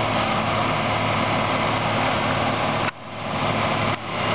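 Diesel engines of a John Deere 9630T and a Case Quadtrac STX535 tracked tractor running together, a steady low hum under a wide hiss. The sound drops sharply about three seconds in and again near the end, each time coming straight back up.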